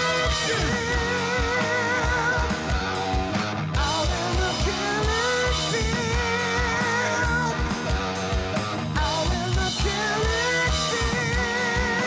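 Hard rock recording in an instrumental stretch: an electric guitar lead plays wavering, vibrato-laden notes over a quick, even kick-drum pulse and held rhythm-guitar chords.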